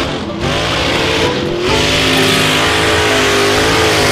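Lifted mud-bog truck's engine revving hard as it churns through a mud pit, the revs dipping briefly just after the start and again about a second and a half in, then climbing and holding high.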